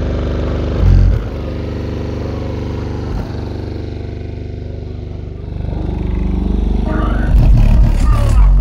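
Deep bass from a car's six Crescendo Audio Contralto 12-inch subwoofers playing very loud: a steady low drone with a fine pulsing to it, swelling louder near the end.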